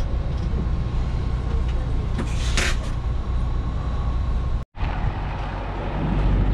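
Coach bus engine running, heard as a steady low rumble inside the cabin, with a short hiss of air about two and a half seconds in. The sound cuts off abruptly after about four and a half seconds, then a steady low rumble follows and grows louder near the end.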